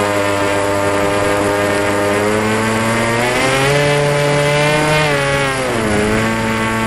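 Electric brushless outrunner motor (3715) spinning a 1060 propeller on a model airplane at takeoff power, a steady whine with a buzzy edge. Its pitch climbs as the throttle opens about halfway through, dips briefly near the end and then steadies.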